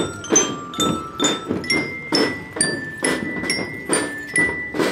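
Children's marching drum band playing: drums beating steadily about twice a second under a ringing glockenspiel melody.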